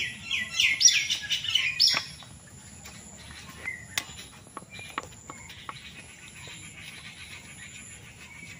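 A bird calling outdoors: a quick run of sharp, high, falling chirps over about the first two seconds, then quiet apart from a few faint clicks.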